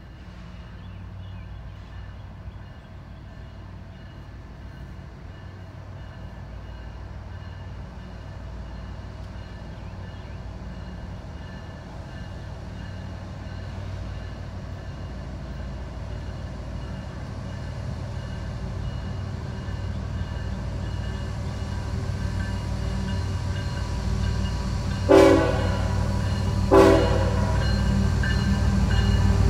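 Diesel locomotive approaching, its engine rumble growing steadily louder, with two short horn blasts about a second and a half apart near the end.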